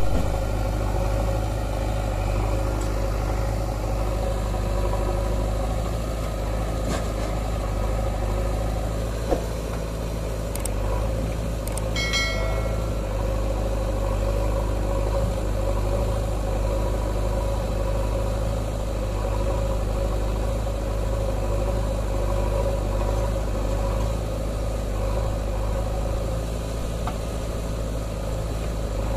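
Heavy diesel engines idling steadily: a JCB backhoe loader with a Swaraj tractor beside it, a deep rumble with a constant hum. A short high-pitched chirp comes about twelve seconds in.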